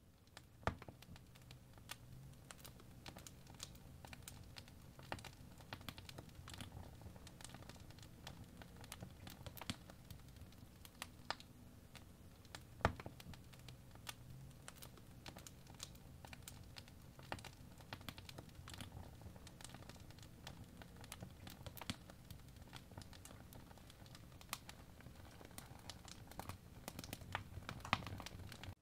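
Faint, irregular tapping and light scratching of an Apple Pencil tip on an iPad's glass screen during drawing strokes, over a low steady room hum.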